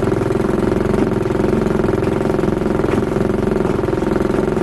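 Boat's outboard motor running steadily at trolling speed: a constant drone with a fast, even firing pulse.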